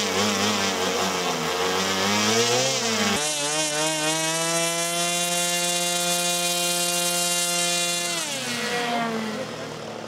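Small model-aircraft engine running. Its pitch wavers up and down at first, changes abruptly about three seconds in, then holds a steady high-pitched run before winding down near the end.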